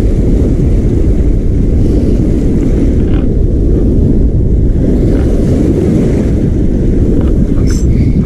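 Strong wind buffeting the microphone in a steady low rumble, with surf washing up the beach underneath.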